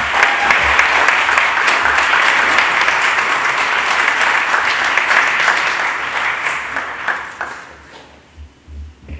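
Audience applauding, a dense, steady clapping that fades out about seven and a half seconds in, followed by a few soft low thumps.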